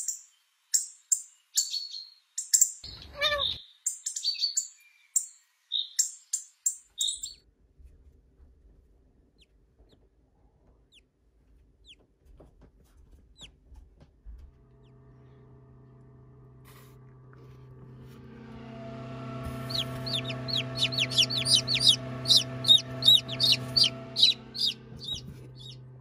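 Small birds chirping in short, separate calls, then a lull. About halfway through a steady low hum starts, and chicks peep rapidly over it, several peeps a second.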